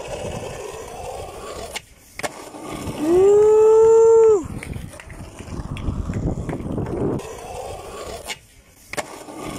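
Skateboard wheels rolling over rough, crusty asphalt, with a few sharp clacks of the board. About three seconds in, a loud pitched wail cuts in, rising at its start and dropping at its end, and lasts about a second and a half.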